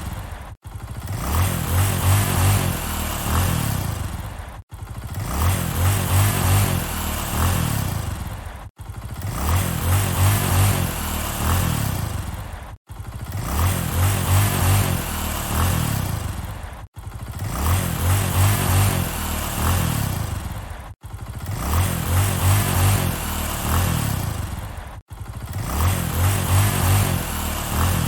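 Motorcycle engine revving, its pitch rising and falling, in the same short stretch repeated about every four seconds with a brief dropout at each repeat.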